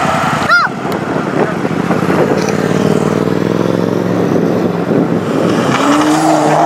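A car engine running by through the hubbub of a crowd, its pitch slowly shifting over a few seconds and rising near the end, after a short high chirp about half a second in.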